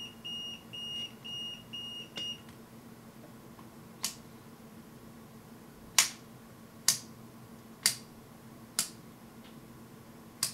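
Fluke 107 multimeter's beeper sounding a run of short, high beeps, about three a second, over the first two seconds. Then its rotary range selector clicks into position six times, roughly a second apart.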